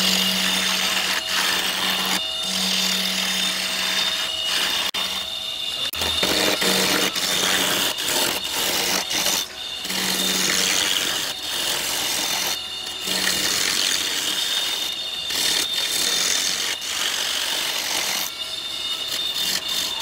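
Walnut being turned on a wood lathe: a continuous scraping hiss of the tool cutting the spinning wood, broken by several short pauses.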